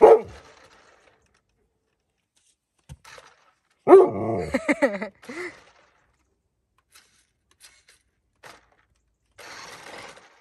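Alaskan Malamute vocalising at a toy: a short falling call right at the start, then a louder, drawn-out 'talking' bark about four seconds in whose pitch bends up and down. A few faint ticks follow.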